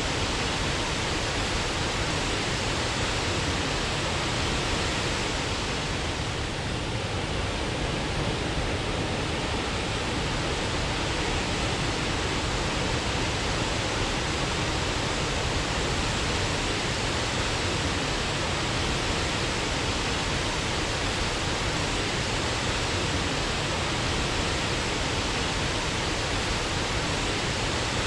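Waterfall: a steady, even rush of falling water without a break.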